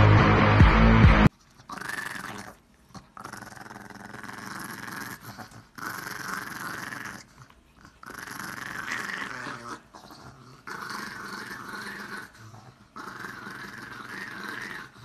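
Loud music cuts off about a second in. A small dog then growls in a string of long, wavering growls, broken by short pauses, as it lunges and snaps at a hand.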